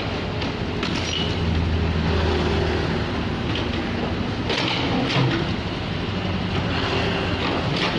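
Komatsu PC78UU excavator's diesel engine running steadily under working load, with several scattered knocks and crunches as the bucket breaks masonry from a wall.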